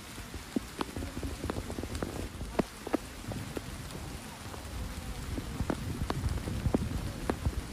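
Heavy rain falling steadily, with frequent sharp ticks of single drops striking close by, two or three a second.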